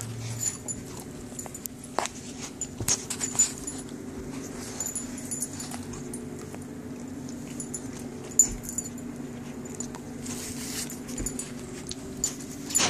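Puppy whining steadily, with scattered light clicks and taps.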